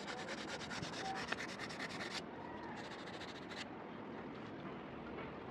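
Sandpaper rubbed by hand along the edge of a layered wooden meat-cleaver handle: fast, scratchy sanding for about two seconds, a short pause, another brief burst, then it stops.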